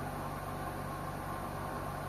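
LG washing machine running mid-cycle: a steady hum with an even hiss and no change in level.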